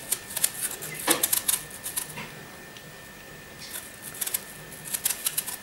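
Light, quick clicks and taps of hand-held kitchen work: a small knife and cut fruit against a plastic lunch box and cutting board. They come in two short flurries, one at the start and another toward the end.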